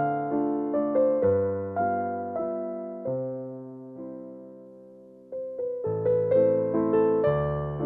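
Calm solo piano music. The notes die away to a lull about four to five seconds in, then the playing picks up again.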